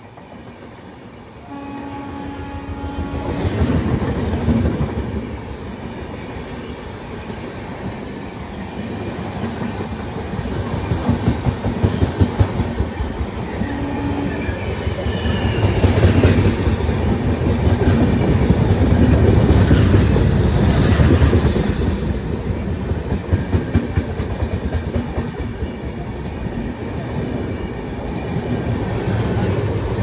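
Poorva Express passenger train running through at speed: a steady rumble with the rhythmic clatter of coach wheels over rail joints, loudest in the middle. A horn blast sounds briefly about two seconds in and again, shorter, around fourteen seconds.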